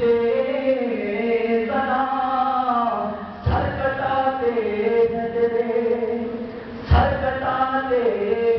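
A man's voice chanting a line of Urdu devotional verse in long, drawn-out melodic phrases, with new phrases starting about halfway through and again near the end.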